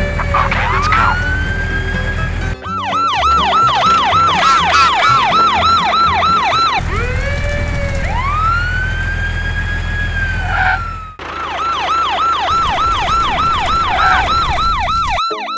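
Emergency-vehicle siren sound effect: a slow rising wail that gives way to a fast yelp of about three sweeps a second, the pattern heard twice, over a steady low rumble.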